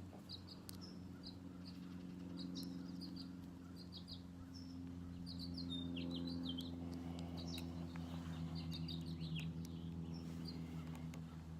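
Birds chirping in quick short notes again and again, over a steady low hum, with a few faint clicks.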